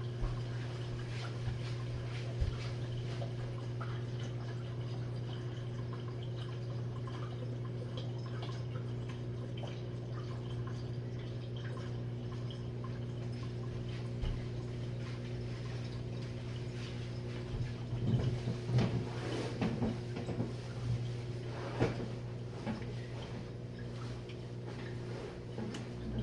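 Jenn-Air dishwasher running a cycle: a steady low hum with water spraying and sloshing inside the tub, which the dishwasher fills with hot water and heats. The sloshing grows louder and more uneven about two-thirds of the way through.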